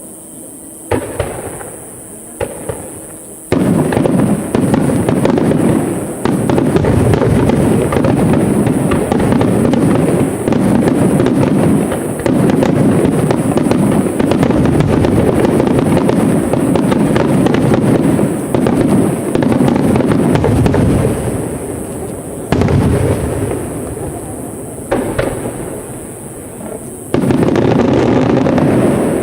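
Aerial fireworks display: a few separate shell bursts, then a dense rapid-fire barrage of overlapping bangs and crackle that runs for about twenty seconds, thins out to single bursts, and builds again near the end.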